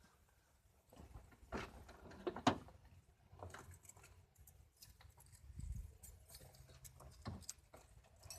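Faint, scattered knocks and clicks of handling, the sharpest at about one and a half and two and a half seconds in; no engine is running.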